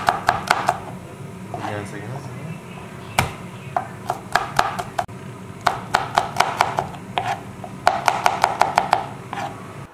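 Large kitchen knife chopping garlic cloves on a wooden cutting board. It comes in runs of quick, sharp blade strikes on the board, the fastest runs in the second half at about seven or eight chops a second.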